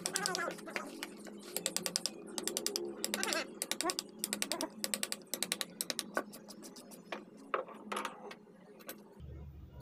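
Hand carving chisel cutting crosshatch grooves into a teak panel: a series of short bursts of rapid clicking, one burst per cut, which stop about seven seconds in. A low hum begins near the end.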